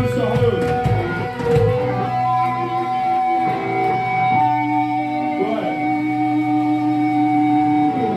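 Live amplified electric guitars and bass from a hardcore punk band, loud and recorded from within the crowd. From a little after halfway, the notes are held and ring steadily for several seconds.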